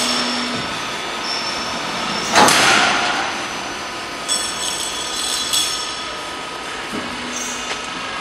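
Glazed-tile roll forming machine running as the formed sheet metal feeds out. One loud metallic bang with a short ring comes about two and a half seconds in, and a few lighter clinks follow in the middle.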